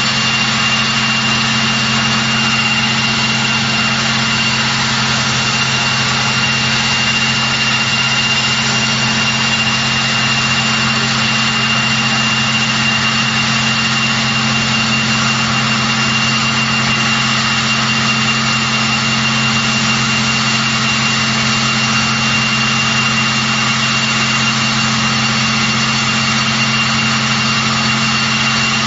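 Rolls-Royce Tyne turboprop engines of a Vickers Vanguard Merchantman airliner running steadily on the ground. The sound is a steady high-pitched turbine whine over a low drone.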